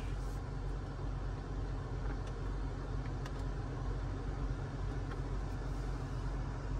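Steady low hum inside the cabin of an idling 2021 Dodge Journey SXT, with a few faint clicks of the climate-control buttons being pressed.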